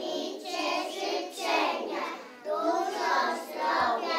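A group of young children singing together in chorus, with a short pause about two and a half seconds in.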